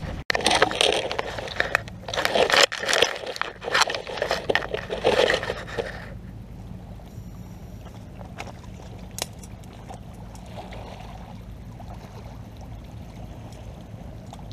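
Loud, irregular scraping and crunching for about the first six seconds. Then a quieter steady water-side background with a few faint ticks as a mesh crab pot is hauled out of the shallows on a rope.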